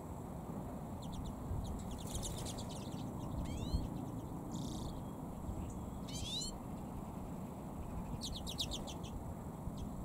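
Redpolls calling: a few bursts of rapid, high chattering notes and two rising call notes, over a steady low background rumble.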